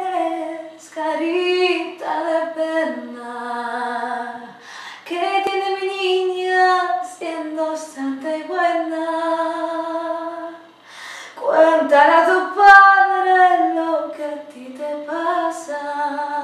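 A woman singing a Spanish song unaccompanied, in long held phrases with short breaks between them.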